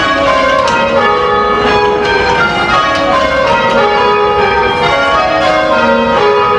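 A ring of church bells swung full-circle by ringers on ropes, struck one after another in an even, continuous sequence of change ringing.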